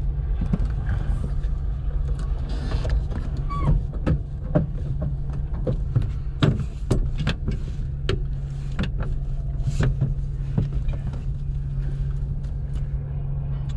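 A steady low hum picked up over the headset intercom, with scattered sharp clicks and knocks from cockpit switches and controls being handled during pre-start checks.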